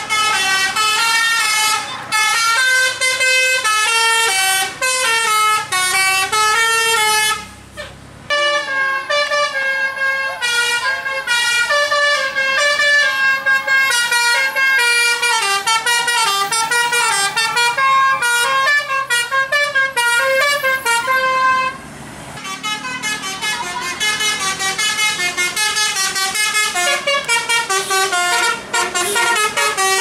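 Bus 'telolet basuri' musical horns playing fast melodies, note stepping after note. The horn breaks off briefly about eight seconds in, and again for a moment near 22 seconds.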